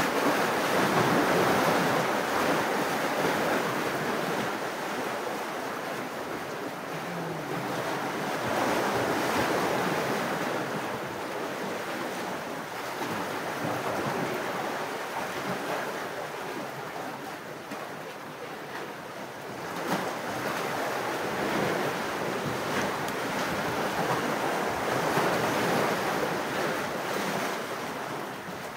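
Wind and sea waves: a steady rushing that swells and eases every few seconds, with wind buffeting the microphone.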